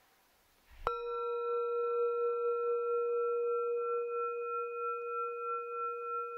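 A singing bowl struck once, about a second in, then ringing on with a steady low tone and higher overtones that pulse gently in loudness.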